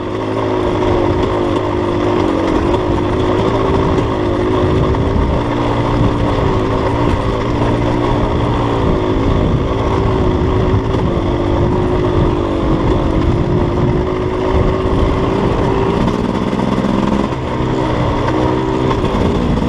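Dirt bike engine running steadily on the overrun, engine braking down a long, steep hill with its Rekluse auto-clutch locked up. The pitch stays nearly even, with only small wavers.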